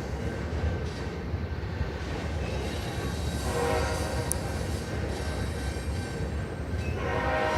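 CN diesel freight locomotive's horn blowing, starting about halfway in, with a louder blast beginning near the end. It sounds over the steady low rumble of the passing locomotives.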